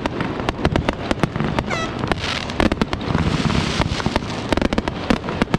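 Fireworks going off: a rapid, uneven string of sharp pops and bangs throughout, with a brief whistle about two seconds in followed by a crackling hiss.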